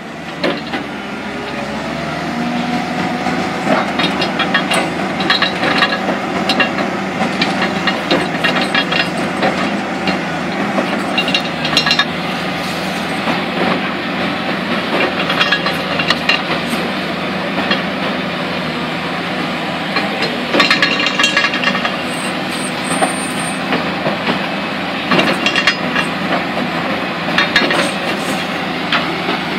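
Large XCMG XE700C hydraulic excavator working rock. Its engine runs steadily under load, and every few seconds there is a spell of rapid knocking and cracking as the pointed tool on its arm breaks into the rock.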